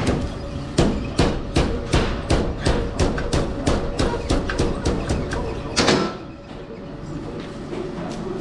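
Rhythmic knocking, about three sharp knocks a second, as straw is worked onto a broom on a running broom winding machine. The knocking stops about six seconds in, leaving the machine's steady motor hum.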